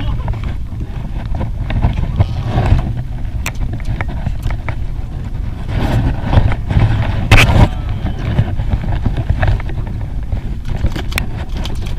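Steady low rumble aboard a small fishing boat, with scattered clicks and knocks as fishing line is handled over the side.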